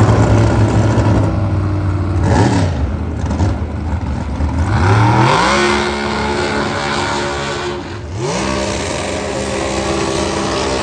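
Super Gas dragster V8 engines at the starting line, running and being revved. The pitch falls about 2 seconds in, then climbs about 5 seconds in and is held at steady high revs. Near 8 seconds it dips and climbs again as the cars leave the line.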